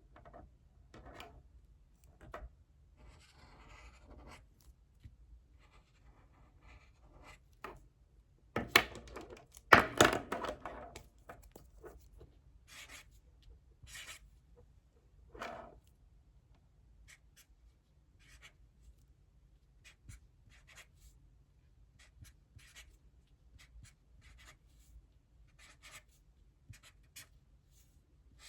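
Handwriting on paper: short scratching strokes in irregular bursts as a math problem is worked out, with a louder rubbing or paper rustle about nine to eleven seconds in.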